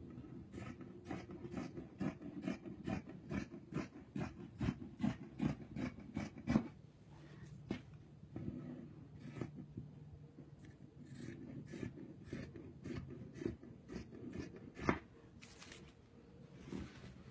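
Scissors snipping through folded stretch fabric along a pattern edge: a quick, even run of about three snips a second, then slower, more scattered cuts with short pauses.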